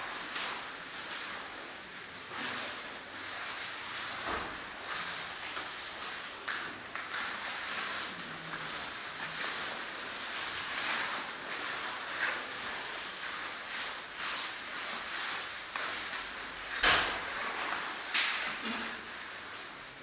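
Bodies moving on a studio floor: shuffles, scuffs and light thumps of barefoot dancers rolling, crawling and shifting weight against one another, with two louder knocks near the end.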